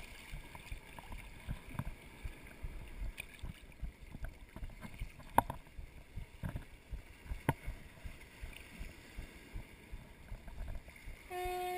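Small waves lapping and sloshing in shallow sea water around a wader, with uneven low splashes and two sharp knocks about five and a half and seven and a half seconds in. A steady low tone starts near the end.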